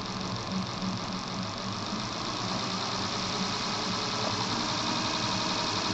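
Experimental induction motor with combined 'Slavyanka' windings and its rotating distribution commutator running, a steady whirring that grows gradually a little louder as the drive is sped up.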